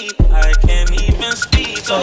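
Background music with a steady beat, deep bass notes and sharp hi-hat ticks.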